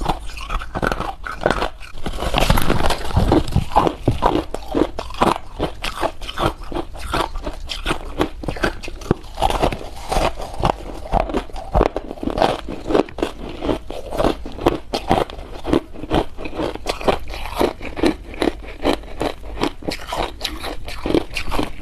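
Hard ice being bitten and crunched between the teeth, close to the microphone. A loud bite comes about two to three seconds in, followed by steady rhythmic chewing crunches at about two a second.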